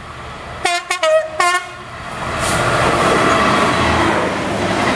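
EWS class 66 diesel locomotive sounding its two-tone horn in three short blasts about a second in, the middle one at a different pitch. Its engine and a train of container wagons then pass close and loud, the rumble rising and holding.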